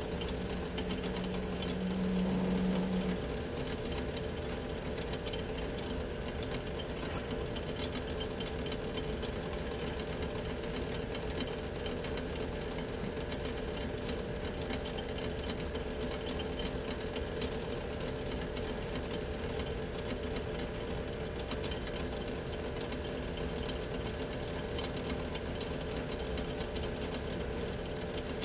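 Metal lathe running steadily while a boring bar cuts the bolt-nose recess in a Remington 700 barrel tenon. A lower hum stops about three seconds in.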